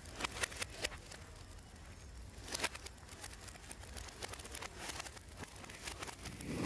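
Lit fuses of anar fountain firecrackers sputtering and crackling, with scattered sharp crackles. A hiss builds near the end as the fountains begin to catch.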